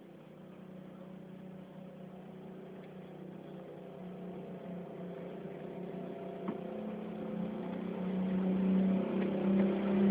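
A steady motor hum that grows gradually louder, with a faint click about six and a half seconds in.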